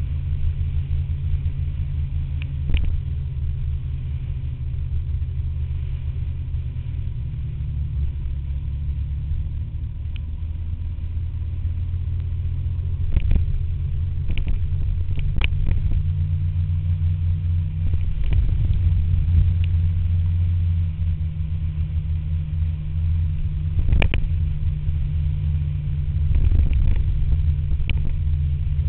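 Scooter riding along a wet road: a steady low rumble of the running engine and the ride, broken by a few sharp knocks.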